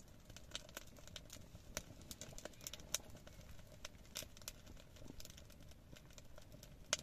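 Wood fire crackling inside a small sheet-steel tent stove: faint, irregular pops and ticks, a few a second, over a quiet background.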